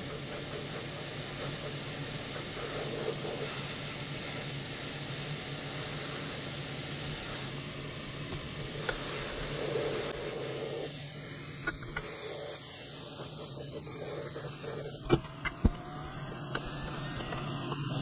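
Hot air rework station blowing steadily: a fan whir with a rushing hiss and a faint high whine. The hiss thins about two-thirds of the way through, and a few sharp clicks follow.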